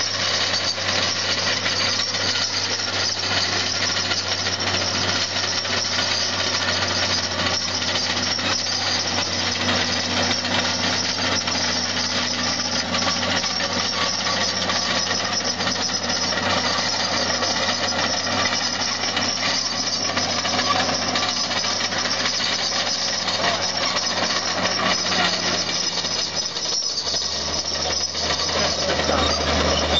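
Caterpillar D5 crawler tractor's diesel engine running steadily under load as it tows a plough, with the dense clatter of its steel tracks. The low engine note deepens near the end.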